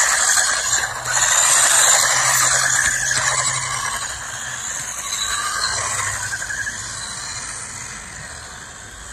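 UDI RC 1601 1/16-scale electric RC car at speed: a high motor whine and the hiss of small tyres on asphalt, loudest in the first couple of seconds, then fading steadily as it drives away.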